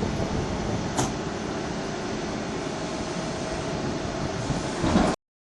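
Excavator's diesel engine running steadily with a mechanical rumble, a sharp click about a second in, and a sudden cut-off near the end.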